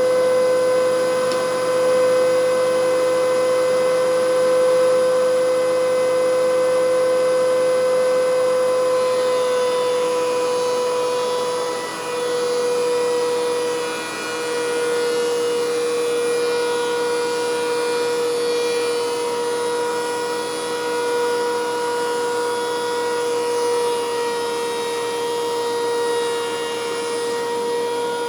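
DeWalt DW735X benchtop thickness planer running with a steady high whine. Its pitch drops slightly about ten seconds in, with two brief dips in level soon after.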